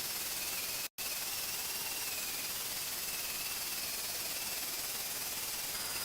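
Steady crackling hiss of a welding arc laying down a bead, with a faint high whine over it. The sound cuts out completely for an instant about a second in.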